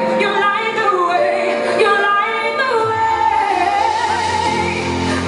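Female singer performing live over band accompaniment, singing wavering runs, then holding a long note; a low sustained accompaniment comes in about three seconds in.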